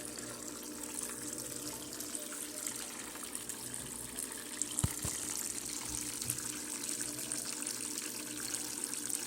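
Electrolux LF10 top-load washing machine filling: water pours steadily into the tub with an even hiss over a low steady hum, and a single short knock about five seconds in.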